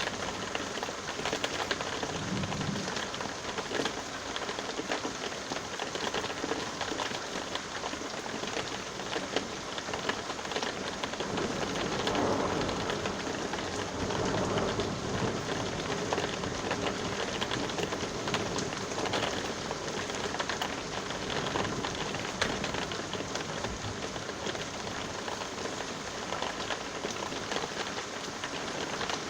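Steady rain falling, the patter full of small drop ticks, with a faint low rumble in the first few seconds.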